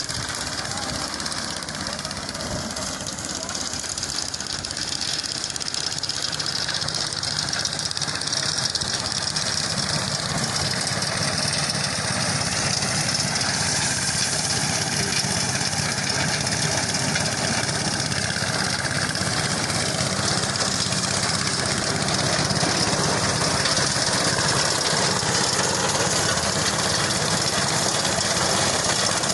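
An engine running steadily at an even speed, with a constant hiss over it.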